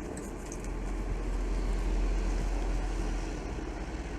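Steady low background rumble and hiss, even throughout, with no distinct knocks or clicks.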